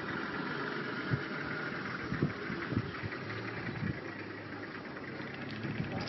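Vehicle engine idling: a steady low hum, with a few soft low thumps.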